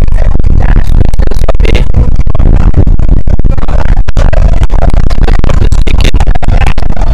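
Loud background music.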